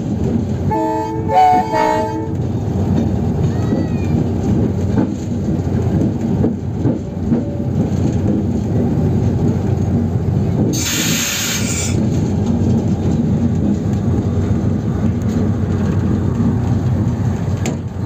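Diesel locomotive running as the passenger train pulls slowly into a station, with the steady rumble of the engine and wheels on the rails. A short multi-tone horn blast sounds about a second in, and a brief burst of hissing air comes near the middle.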